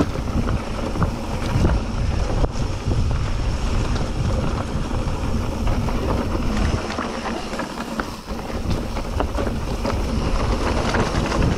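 Wind rushing over the microphone of a mountain bike being ridden on a dirt cross-country trail, with the tyres rolling and the bike clattering over the ground. It eases a little around two-thirds of the way through.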